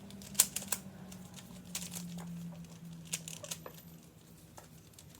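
Scattered light clicks and taps of plastic fidget toys being handled, one sharper click about half a second in, over a low steady hum that fades out a little past halfway.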